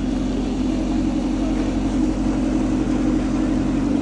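Speedboat engine running with a steady drone as the boat pulls away across the water.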